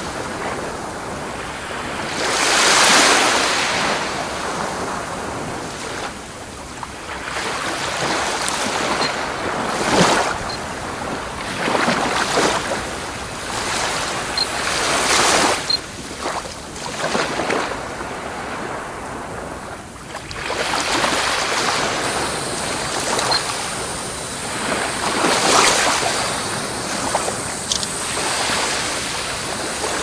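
Small sea waves washing onto a sandy shore, the surf swelling and ebbing every few seconds, with wind buffeting the microphone.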